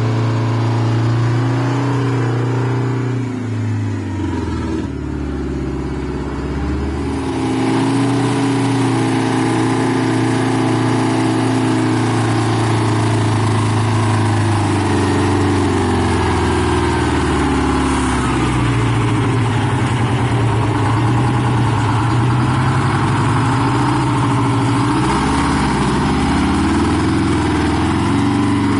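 Vintage truck engine running as it pulls away. Its pitch drops low a few seconds in, then rises and falls repeatedly as it revs up and down.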